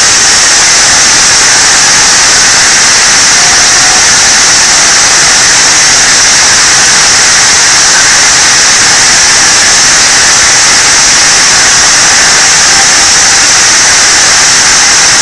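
Deliberately over-loud 'rage jumpscare' sound effect: a steady, harsh wall of distorted noise played at almost the loudest level a recording can hold, with a bright hiss on top and no let-up.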